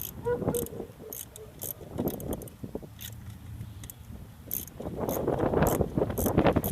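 Ratchet wrench clicking in short strokes as the last alternator mounting bolt is tightened. Wind buffets the microphone, growing loud about five seconds in.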